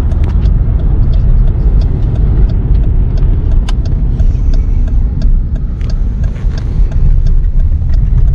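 Car driving slowly: a steady low rumble with scattered small clicks and rattles.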